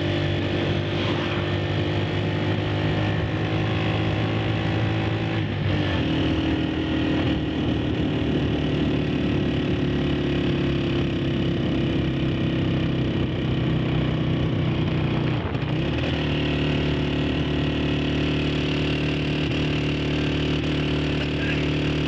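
Motorcycle engine running steadily under way, heard from on the bike. The engine note shifts briefly twice, about six and sixteen seconds in.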